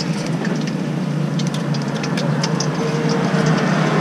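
Steady low hum of an idling engine, with scattered light clicks and clinks of tongs and skewers on the food cart.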